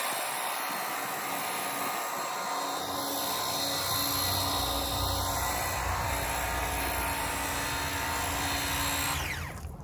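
DeWalt 20V Max cordless pressure washer (550 PSI) running and spraying soapy water through its soap cannon nozzle on high pressure: a steady motor and pump whine over the hiss of the spray. A deeper rumble joins about four seconds in, and the sound winds down and stops shortly before the end.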